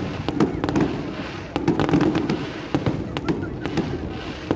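Aerial fireworks going off in a rapid, irregular string of sharp pops and cracks, several a second.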